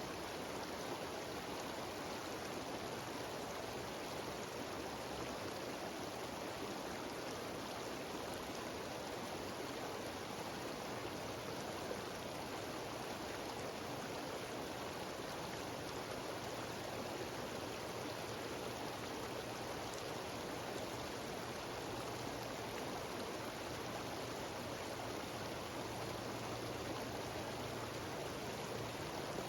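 Small mountain waterfall cascading over rocks: a steady, unbroken rush of falling water.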